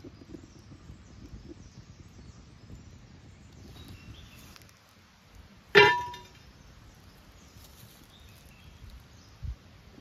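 A flat iron pan set down onto the stones over a wood fire: one sharp metallic clang about six seconds in that rings briefly. A short low thump near the end.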